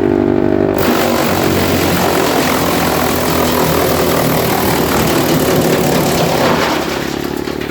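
Wood chipper running, with a dense grinding roar starting about a second in as material goes through the chipper, lasting about six seconds. Near the end the roar dies away and the steady engine-driven hum of the machine running empty returns.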